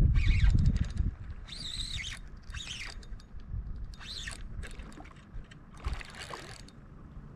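Wind buffeting the microphone for about the first second, then faint wind with a string of short, high calls that rise and fall, about one a second. These are most likely birds calling.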